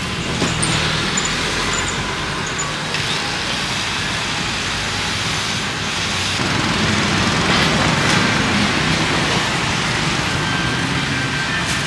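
Road traffic: a steady hum of passing motorbikes and cars, swelling a little as vehicles go by.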